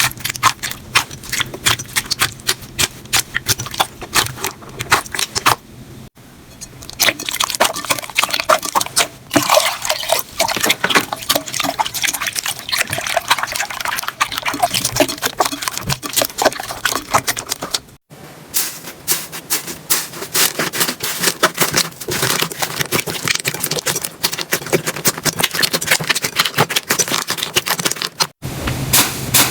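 Slime being squished and poked by hand, with dense, wet, irregular crackling and popping clicks. The sound is in several short takes, each cut off abruptly: about 6 seconds in, about 18 seconds in and near the end.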